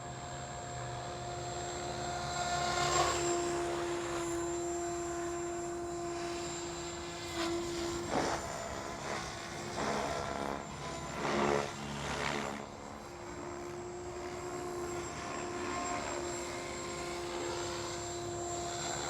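Electric Goblin Kraken 580 RC helicopter in flight: a steady motor and rotor whine, with several swells of rotor noise between about three and twelve seconds in as the blade pitch is pumped. The new one-way bearing is holding, with no cut-out of the motor.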